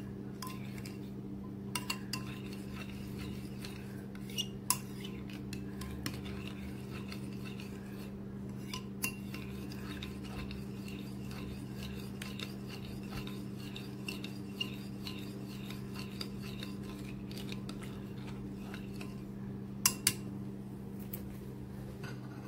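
Metal spoon stirring yeast, sugar and warm water in a ceramic bowl to dissolve them: a light steady scraping with scattered clinks of the spoon against the bowl, and two sharp clinks close together near the end. A steady low hum runs underneath.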